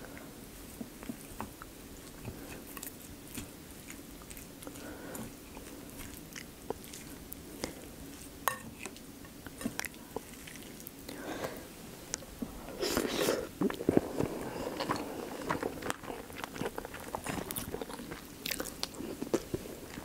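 Close-miked eating sounds: a wooden spoon stirring and scraping rice in a ceramic bowl, and wet chewing of mouthfuls of rice with many small clicks, loudest around the middle.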